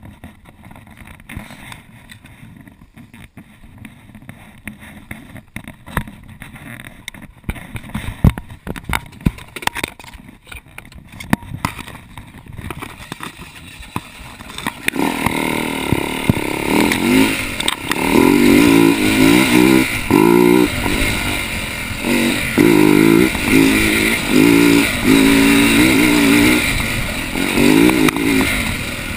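Husaberg dirt bike engine, heard from the rider's helmet camera. For the first half there are only light clicks and knocks. About halfway the engine comes in loud and the bike is ridden along a rough trail, its engine revving up and down again and again.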